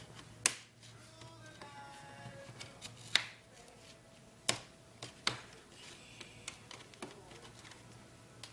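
Plastic clips of an Asus N56V laptop's top cover snapping loose as a pry tool works along the seam between cover and chassis: sharp clicks, four loud ones a second or more apart, then a few fainter ones.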